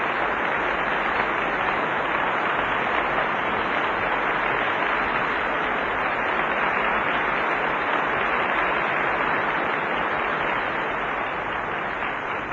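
Concert-hall audience applauding: a steady wash of many hands clapping, beginning to fade near the end.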